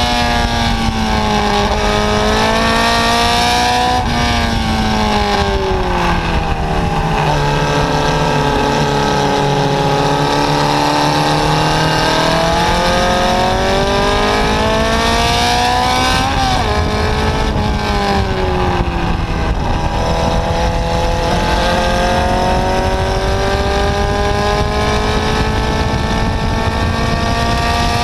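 Formula Junior single-seater's engine at racing speed, heard on board. The pitch drops twice as the car brakes and changes down, and climbs between the drops and through the end as it accelerates out of the corners, over a steady rush of wind and road noise.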